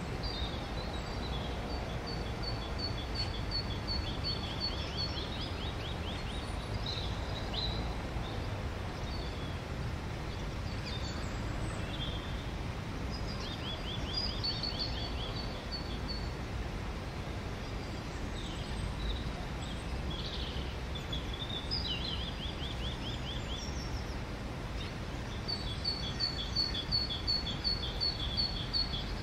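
Songbirds singing in rapid trills of repeated high notes, several phrases spread through, the loudest near the end, over a steady low background rumble.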